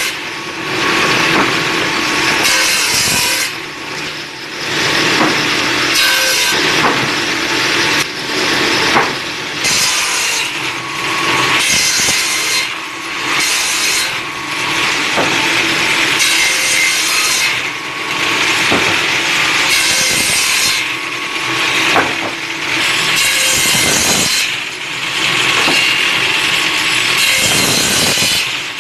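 Wood being sawn in repeated cutting passes, each lasting one to two seconds with short pauses between, over a faint steady hum.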